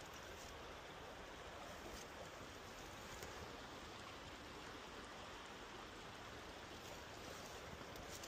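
Faint, steady hiss of background noise with no distinct events.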